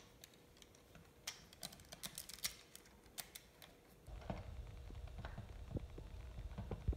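Plastic Lego bricks clicking as a roof tile piece and other parts are pressed back onto a model truck by hand, a string of sharp separate clicks. From about four seconds in, a low rumble of handling takes over with a few dull knocks, the loudest near the end.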